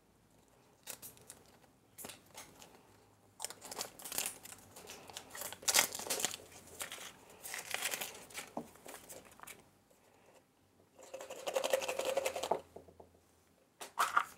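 Surprise egg packaging being crinkled and torn open by hand, in irregular rustles and crackles with short pauses.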